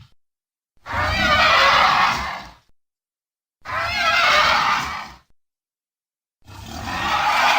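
Allosaurus roar sound effect: three separate, loud, wavering calls of about two seconds each, with silence between them; the third begins about a second before the end.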